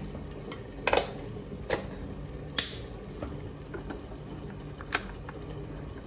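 Sharp plastic clicks from a white plastic Essentials electric kettle as its lid is locked shut and the kettle is handled: a handful of separate clicks, the loudest about two and a half seconds in.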